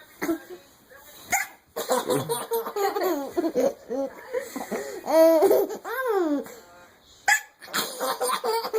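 Young child giggling in repeated bursts, broken by a few short, sharp hiccups.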